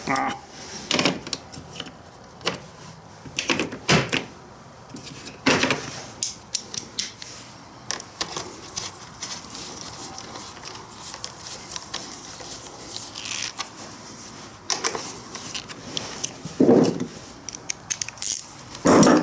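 Irregular metallic clicks, knocks and clatters of hand tools and small parts being handled during work on a motorcycle battery install. A short whine-like sound comes near the end.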